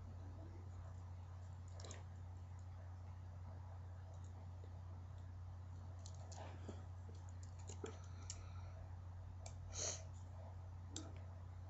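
Scattered small plastic clicks and taps from Bakugan toy pieces being handled, with a cluster from about six to eight seconds in and the loudest click near ten seconds, over a steady low hum.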